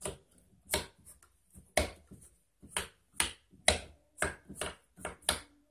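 Abacus beads clicking as a hand flicks them up and down their rods against the frame and middle bar: about a dozen sharp clicks, unevenly spaced.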